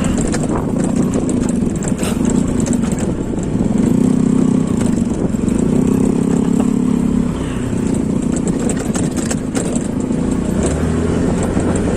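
Honda Click scooter engine running under throttle on a rough dirt trail, its note strengthening about four seconds in and easing back about seven seconds in, with scattered knocks from the bumpy ground.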